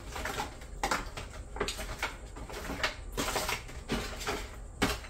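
Disposable aluminium foil pan crinkling and rattling as seasoned chicken pieces are turned and mixed by a gloved hand: an irregular run of crackles and rustles, with a sharper one near the end.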